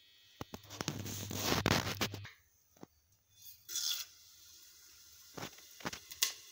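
Whole spice seeds tipped into hot oil in an aluminium pressure cooker, sizzling and crackling for about two seconds, with a shorter burst a little later and a few single pops near the end.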